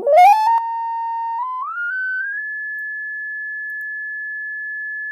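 Pure sine-wave test tone from a software tone generator, its frequency swept upward in steps from a low pitch to about 1,700 Hz over the first two and a half seconds, then held steady. It is loudest in the first half-second, with faint overtones above it.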